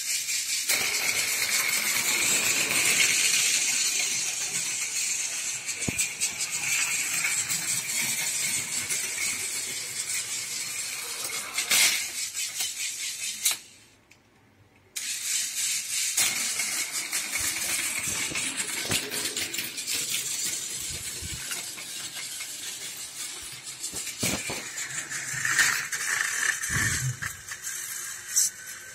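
Battery-powered Tomy Plarail CRH380A toy train's motor and gears whirring with a plastic rattle, mixed with clicks of plastic cars and track being handled. The whirr cuts out suddenly about 14 seconds in and starts again a second later.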